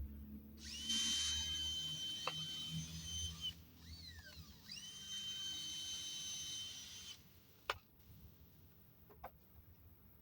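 Power drill boring pilot holes into very hard wood: two runs of a steady high whine with bit noise, the motor winding down and spinning back up between them. A few sharp clicks follow near the end.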